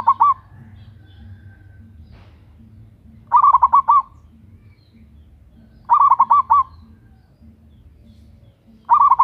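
Zebra dove (perkutut) cooing: short phrases of several quick, rapid coo notes, repeated about every three seconds. One phrase is ending as the sound begins, two full phrases follow, and another starts at the very end.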